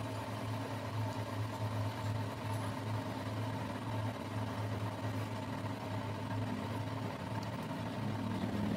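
Metal lathe running steadily with a constant low hum as its cutting tool turns a crankshaft journal, peeling off long ribbons of metal chips.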